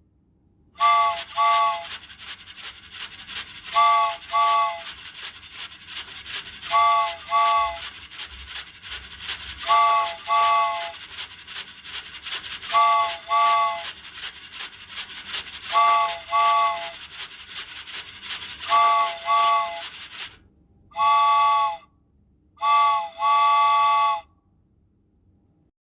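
Cartoon steam-train sound effect of Casey Jr.: a three-note chord whistle toots twice every three seconds over a rapid hissing chug. Near the end the chugging stops and the whistle gives a long blast, a short toot and another long blast.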